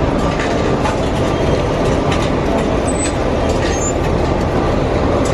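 Steady running noise of a moving city bus, with faint rattles and a couple of brief high squeaks about three and four seconds in.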